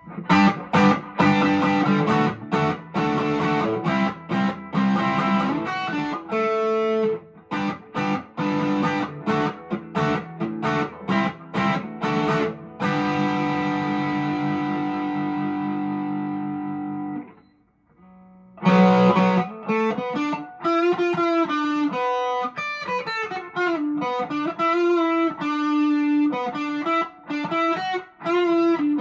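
PRS SE McCarty 594 electric guitar played through an overdriven VOX AC10 amp. It opens with rhythmic struck chords, then one chord is left ringing and fades out. After a short break comes a run of single-note lead lines.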